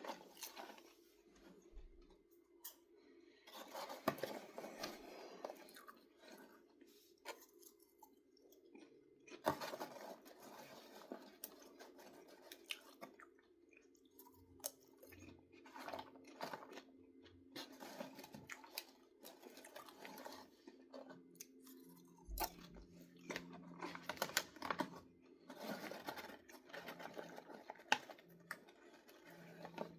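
Someone chewing and crunching popcorn close to the microphone, in irregular spells of crackling bites. A steady low hum runs underneath.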